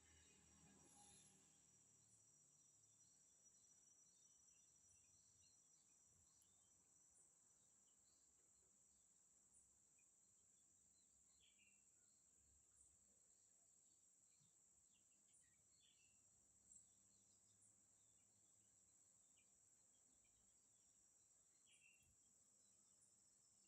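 Very faint steady high-pitched insect drone, typical of crickets, with scattered faint short chirps through it.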